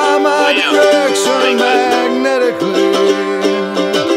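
Background music, with no words sung.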